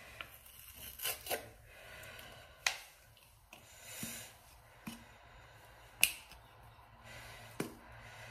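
A small sachet being worked open by hand: faint crinkling with a few scattered sharp ticks as fingers pick and tear at its corner.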